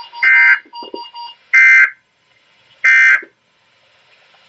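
NOAA Weather Radio SAME end-of-message data bursts: three short, warbling digital tone bursts about 1.3 s apart. They signal the end of the Required Weekly Test broadcast. Faint pulsing beeps sound under the first burst and stop after about a second and a half.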